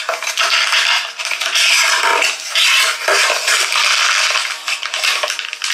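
Hands rustling and crinkling cardboard and plastic packaging as a box is unpacked, played back loud through the Microsoft Surface Laptop Studio's quad speakers turned up high.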